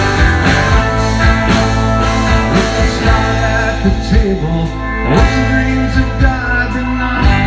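Live rock band playing with electric guitars, bass guitar and drum kit. A man starts singing into the microphone about four seconds in.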